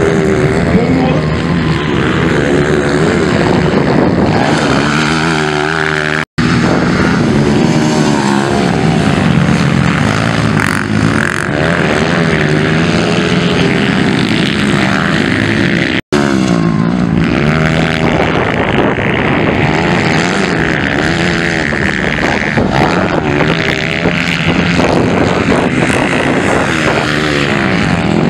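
Motocross dirt bike engines revving hard, their pitch rising and falling over and over as the throttle is opened and closed. The sound drops out abruptly for an instant twice.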